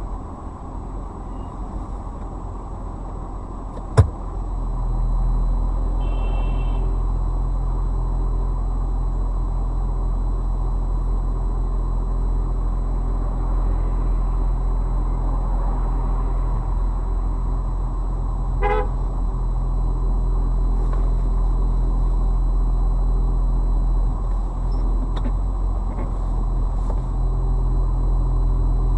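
Steady car engine and road rumble that gets louder a few seconds in, just after a single sharp click. A short car horn toot comes about two-thirds of the way through.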